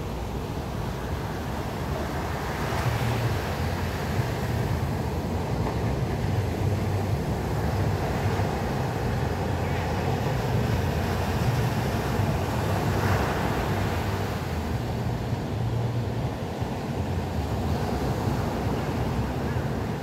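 Atlantic surf breaking on the beach, a continuous wash of noise that swells as waves crash, with wind buffeting the microphone in a low rumble.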